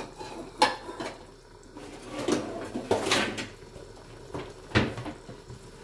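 Kitchen knocks and clunks: four or five sharp hits about a second apart, as of cupboard doors, bowls or utensils being handled, with a brief rushing scrape near the middle.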